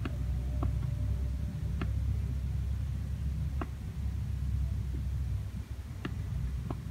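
Short, sharp clicks of a computer's pointing device, about seven at uneven spacing as the on-screen design is worked on, over a steady low rumble.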